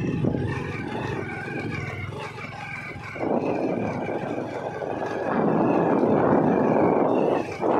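A vehicle's engine runs while it drives along a rough dirt track. Wind buffets the microphone, surging at about three seconds and again from about five seconds on, with a brief drop near the end.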